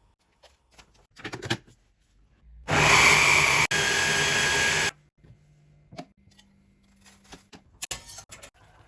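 An electric kitchen appliance's motor running loudly for about two seconds, with a split-second break partway through, between quieter clicks and clatter of kitchen work.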